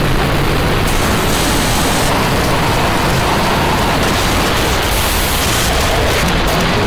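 Harsh digital noise music: a loud, dense wall of static across every pitch, its top hiss switching abruptly a few times in cut-up edits.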